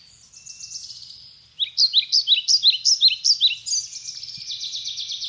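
Several songbirds singing together. About a second and a half in, one bird gives a loud run of quick down-slurred notes, about four or five a second, for around two seconds, over other birds' rapid trilling.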